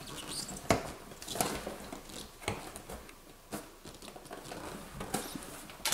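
Fingers picking and scratching at the flaps of a cardboard box to pry it open: scattered small clicks and scrapes, about one a second.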